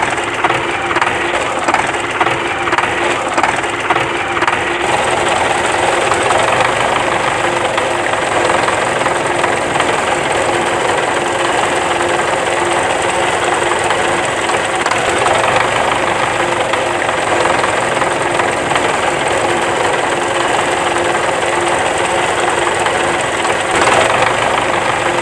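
Homemade toy tractor's small motor and plastic gear train running as it drives along. It clicks rapidly for the first few seconds, then settles into a steady whirr.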